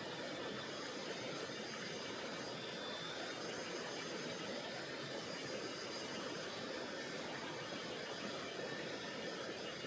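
Mountain river water rushing steadily over rocks: an even, unbroken wash of flowing water.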